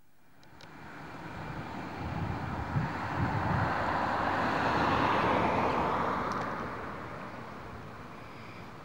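Road traffic: a vehicle passing on the road, its noise swelling over a few seconds to a peak about halfway through and then fading away.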